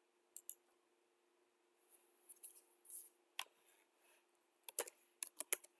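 Faint computer mouse clicks and keyboard keystrokes: two quick clicks near the start, a soft scuffing around the middle, then a quick run of keystrokes near the end. A faint steady low hum lies under it all.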